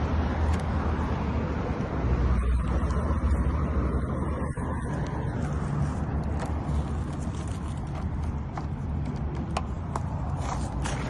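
Light metallic clicks and taps of hand tools working a car's door lock partly out of the door, more frequent in the second half, over a steady low rumble.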